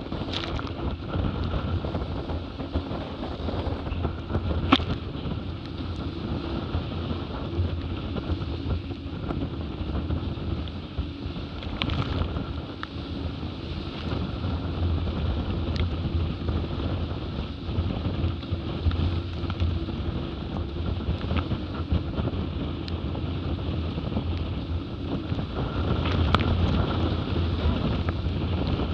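Wind buffeting the microphone and water rushing and spraying past the hulls of a Hobie 20 catamaran sailing fast. Underneath is a faint steady hum, and there are a couple of sharp ticks, about five and twelve seconds in.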